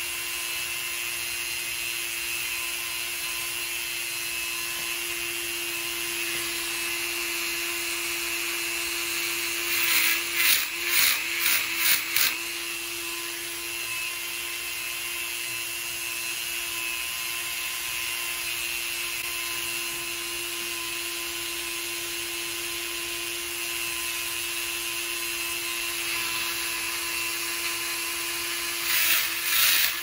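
Handheld rotary tool running steadily with a constant whine, its tungsten carbide burr grinding a small steel scissors part in a few short, loud bursts about ten seconds in and again near the end.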